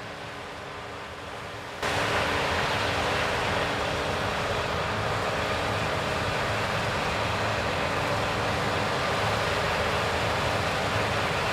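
CLAAS Lexion 7500 combine harvester running, a steady mechanical rush with a low hum underneath. It jumps abruptly louder about two seconds in and then holds steady.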